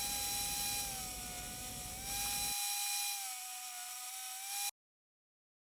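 Power tool motor running with a steady whine whose pitch dips slightly now and then, cutting off abruptly near the end.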